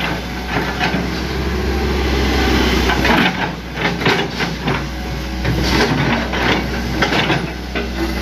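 Hitachi ZX100 excavator's diesel engine running steadily under load, easing off briefly about three seconds in, with repeated knocks and scrapes from the working machine.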